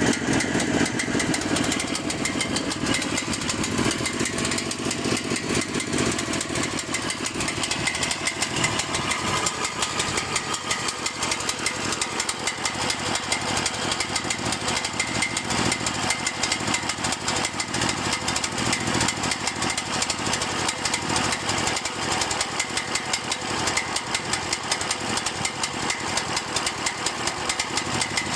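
Cael mini excavator's small engine running at a rough idle, steady in loudness throughout.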